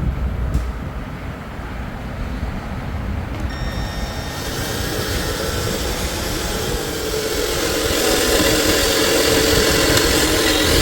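Electric drill boring through steel plate with a larger bit, a steady motor sound. From about four seconds in it grows louder and brighter as the bit cuts.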